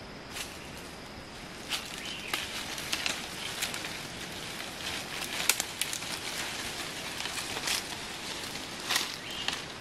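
Leaves and dry stems rustling and crackling as a person pushes through forest undergrowth, with scattered sharp snaps of twigs and leaf litter.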